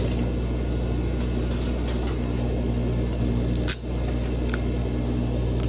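A steady low mechanical hum, with a few sharp clicks or taps over it a little past the middle.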